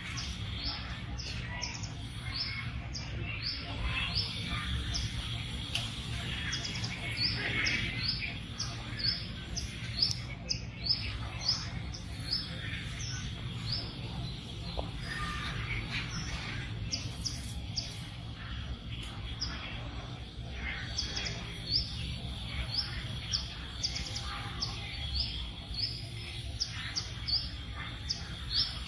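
Small birds chirping: short, high chirps repeating about two or three times a second, over a steady high thin tone and a low rumble.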